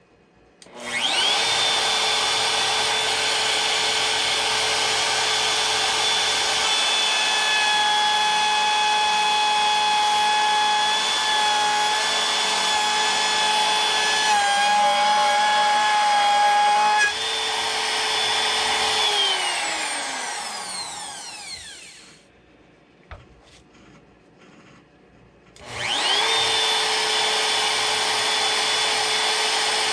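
Electric wood router cutting a kill-switch cavity into a guitar body through a template: the motor spins up to a steady high whine, its pitch shifting slightly under load as it cuts. It is switched off and winds down with a falling whine, then is started again near the end.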